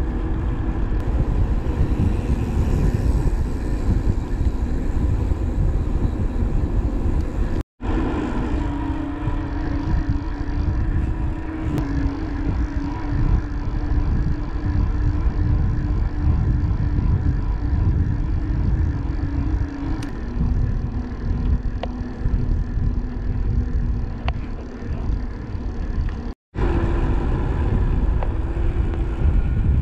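A motor vehicle being driven: a steady engine note over road rumble, with the engine pitch stepping lower a couple of times. The sound drops out briefly twice, about eight seconds in and near the end.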